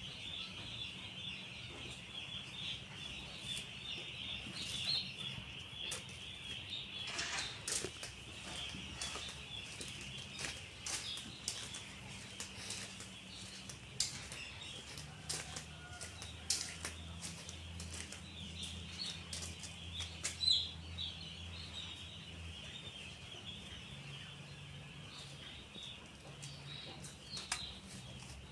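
A shed full of broiler chickens cheeping together in a dense, unbroken chorus, with scattered wing flaps and sharp clatters as birds move about. A steady low hum runs underneath.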